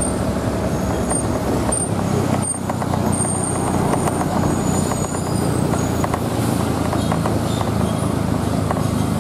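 A motorcycle engine runs steadily at low speed, mixed with tyre and engine noise from the slow queue of cars and trucks alongside.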